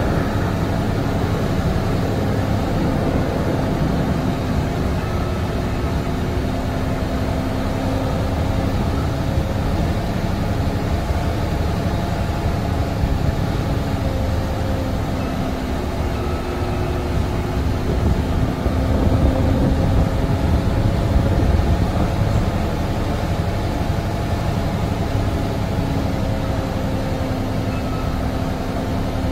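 Semi truck's MaxxForce 13 diesel engine running at low speed, heard from inside the cab as a steady drone. It gets a little louder for a few seconds about two-thirds of the way in.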